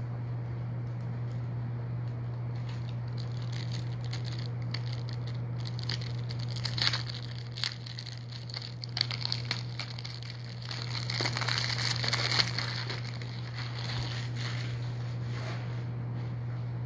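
Rustling and crinkling handling noise in bursts from about six to thirteen seconds in, loudest around twelve seconds, over a steady low electrical hum.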